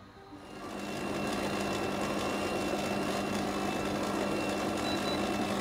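Kenwood stand mixer's motor starting up about half a second in, then running at a steady speed as its beater churns flour into creamed butter and sugar.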